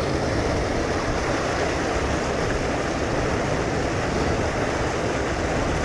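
Wind buffeting the microphone: a steady rushing noise with rumbling gusts underneath.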